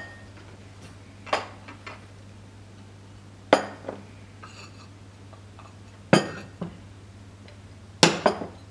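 China tea service pieces (cup and saucer, plate, teapot and milk jug) set down one after another on a wooden table: four sharp clinks a couple of seconds apart, each followed by a lighter knock.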